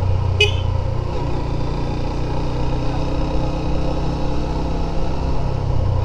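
Motorcycle engine running steadily while riding. A brief high-pitched note sounds about half a second in.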